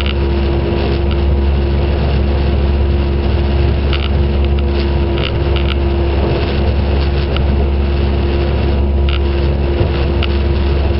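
Motor boat's engine running at a steady speed, heard on board as a loud, even low drone with a constant hum in it. Short high-pitched blips sound now and then over it.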